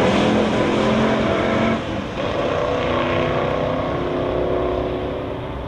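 Muscle car engines at full throttle on a drag strip. There is a brief dip in level about two seconds in, then the engine note carries on and slowly fades as the cars pull away down the track.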